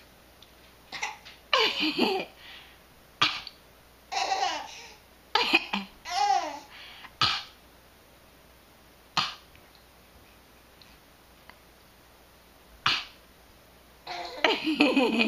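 Short, loud coughs repeated every second or two as part of a coughing game, some carrying a squeaky rising-and-falling tone. The coughs pause for several seconds, then a quick run of them comes near the end.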